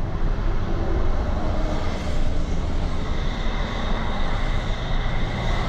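An engine running steadily: a low rumble with a wash of noise over it, without a break.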